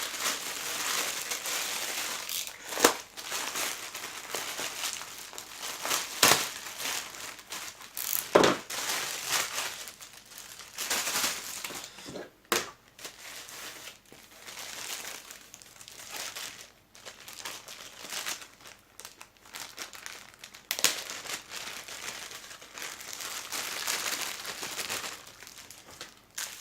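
Parcel packaging crinkling, crushing and tearing as it is cut open with a craft knife and unwrapped, in long stretches of rustling broken by several sharp crackles.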